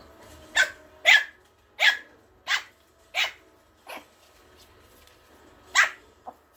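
Morkie puppy barking: six short, high-pitched barks in quick succession, then a pause, one more bark and a small yip near the end.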